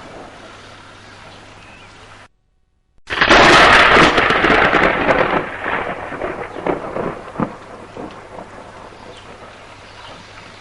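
Steady rain, then a near thunderclap: a sudden loud crack about three seconds in, followed by crackling, rolling rumbles that fade away over several seconds while the rain keeps falling. Just before the crack the sound drops out to silence for under a second.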